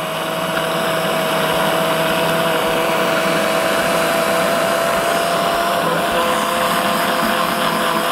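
Electric food processor motor running steadily, blending ingredients; its pitch drops slightly about six seconds in.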